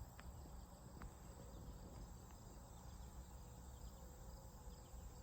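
Near silence: faint outdoor ambience with insects chirping steadily.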